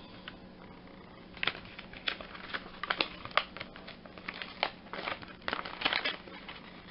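Clear plastic microphone packaging crinkling and crackling in the hands as it is pulled open, in quick, irregular crackles that start about a second and a half in.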